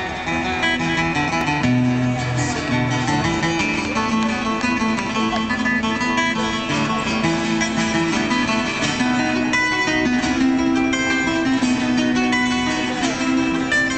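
Two guitars, one of them acoustic, playing together live through a PA: a continuous run of quick plucked notes over strummed chords.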